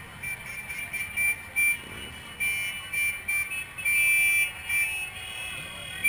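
A shrill high tone sounding in irregular short and longer blasts, a dozen or so, over a low street and crowd hum; a second, slightly higher tone joins near the end.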